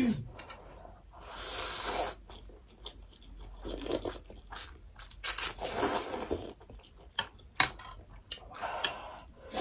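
Close-up eating sounds: noodles slurped in several long drawn-in bursts, with chewing and a few sharp clicks in between.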